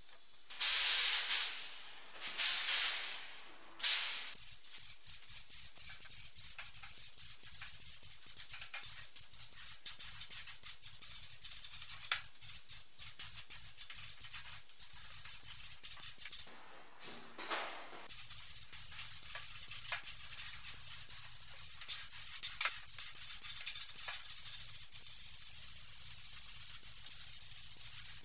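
Gravity-feed spray gun hissing with compressed air as it sprays black paint: three short loud hisses in the first few seconds, then a steady spray that breaks off for about a second and a half a little past the middle before starting again.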